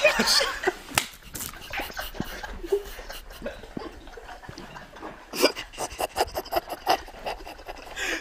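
A group of young men laughing hard: breathy, wheezing, gasping laughter, broken by a few sharp knocks.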